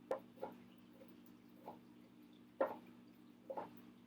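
Kitchen knife mincing soft pickled garlic on a cutting board: about six short, sharp knocks at irregular spacing, over a faint steady hum.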